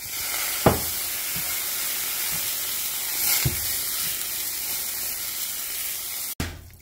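Water poured into a hot stainless steel frying pan, sizzling steadily as it hits the steel and beads up into droplets. A sharp knock sounds about a second in and a softer one midway. The sizzle cuts off suddenly near the end.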